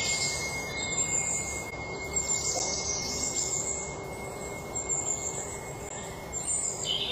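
Woodland nature ambience: birds chirping over a steady insect hiss, with a thin, steady high tone that fades near the end.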